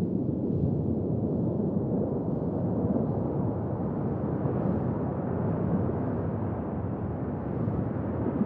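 Steady low underwater rumble: the ambient noise of the sea heard on a submerged camera.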